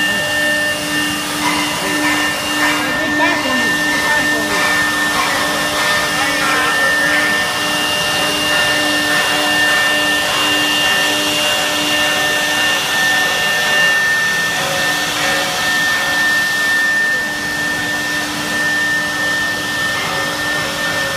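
Twin-spindle CNC router cutting grooves in an aluminium panel: a steady high spindle whine over a broad rush of air.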